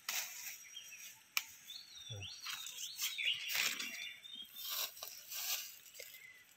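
Dry bamboo leaf litter crunching and rustling in several bursts, with one sharp click about a second and a half in. Small birds chirp throughout.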